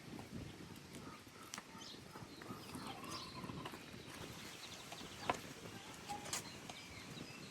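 Farmyard chickens clucking softly, with scattered short clicks and taps.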